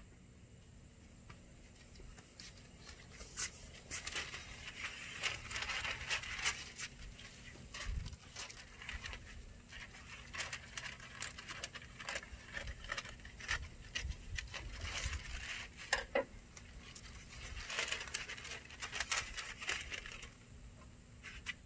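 Brown masking paper rustling and crinkling as it is handled and spread out, with scattered small clicks and two longer stretches of denser crackling.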